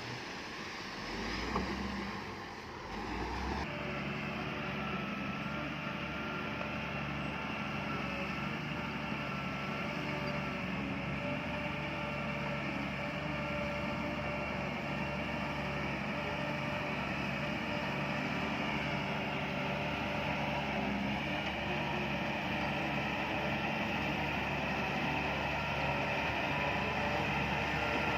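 Heavy diesel engine of earth-moving machinery running steadily, with an abrupt change in the sound about four seconds in.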